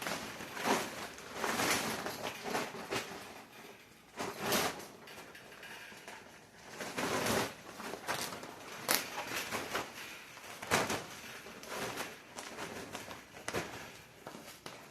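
Plastic greenhouse cover being handled and pulled over a mini greenhouse frame: irregular rustling and crinkling swishes, with several sharper scrapes spaced a second or two apart.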